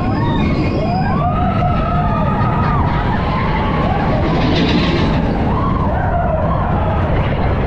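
Mine-train roller coaster rumbling along its track with wind buffeting the ride camera, while riders let out long rising-and-falling whoops and screams.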